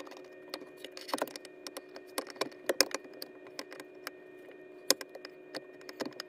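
Irregular small metallic clicks, taps and rattles from the upper steering shaft and its joint as they are handled and wiggled by hand, a few knocks standing out louder than the rest. Under them runs a faint steady hum.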